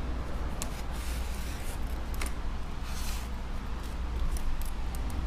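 Faint light clicks and short scrapes of an iPad and small parts being handled during a repair, over a steady low hum.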